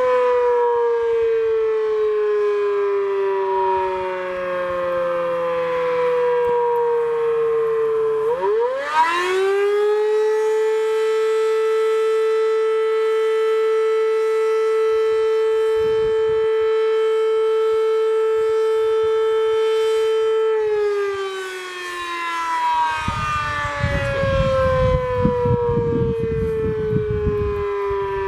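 Sterling 5VX fire siren sounding its attack cycle: the tone winds down, climbs quickly back up about a third of the way in, holds a steady high wail for roughly ten seconds, then winds down again. An old siren that still runs well for its age. A low rumbling noise comes in over the last few seconds.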